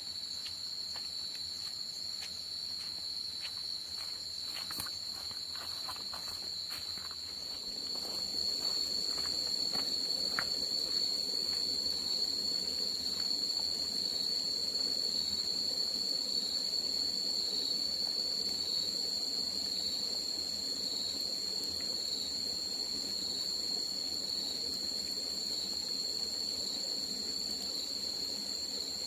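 Steady high-pitched chirring of insects such as crickets, with faint clicks and snaps during the first seven seconds. From about eight seconds in, a low even noise joins underneath.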